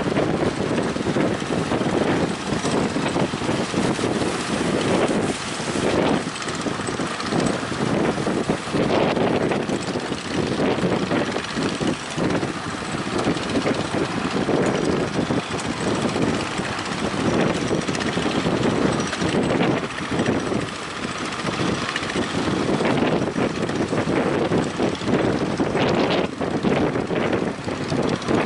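A speedboat's engine running steadily, mixed with strong wind buffeting the microphone.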